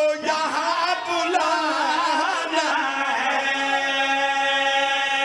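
Male voices singing a Punjabi qasida without instruments, a lead singer with backing singers. The melody runs in wavering ornaments, then settles into a long held note about three seconds in.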